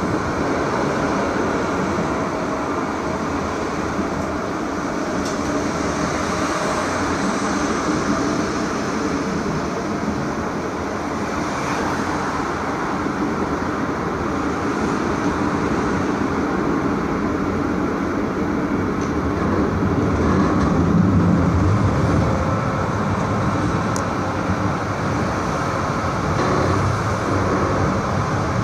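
SGP E1 tram with a C3 trailer running along the track: a steady rumble of wheels on rails and running gear, growing a little louder about two-thirds of the way through.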